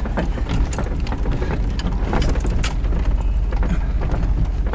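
Off-road vehicle driving over a rough dirt trail, heard from inside the cab: a steady low engine and road rumble with frequent short clicks and knocks from the bumps.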